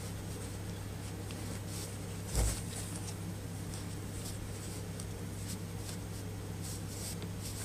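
Faint rustling and small clicks of hands handling a laptop charger and its twist ties, with one dull thump about two and a half seconds in, over a steady low hum.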